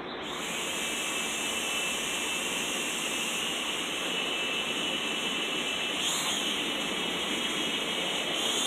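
Small toy quadcopter drone's electric motors and propellers spinning up and whirring with a high whine. The pitch rises briefly about six seconds in and again near the end.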